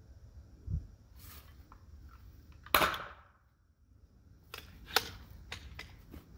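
Ramset powder-actuated nailer fires once with a sharp, loud crack about three seconds in, shooting a nail through a 2x4 into the brick column's mortar. A few lighter clicks and knocks follow.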